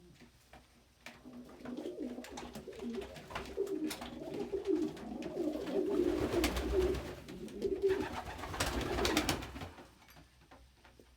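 Domestic pigeons cooing over and over with low, throaty calls, among light clicks and scuffs. Two louder rustling flurries come about six seconds in and again near nine seconds, like wings flapping in a scuffle.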